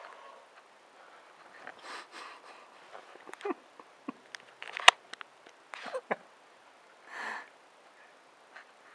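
Kittens play-fighting: scattered scuffles and sharp taps, with a short breathy hiss about seven seconds in.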